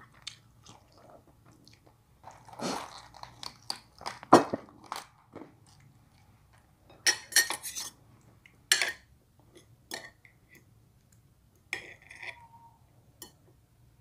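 Close-up chewing and crunching of mouthfuls of rice and crisp fresh lettuce, in irregular bursts with short pauses, with the odd light tick of spoon and fork on a ceramic plate.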